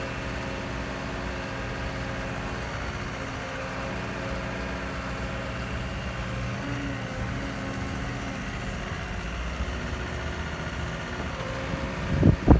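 Caterpillar 314 excavator's diesel engine idling steadily. Near the end, wind starts buffeting the microphone.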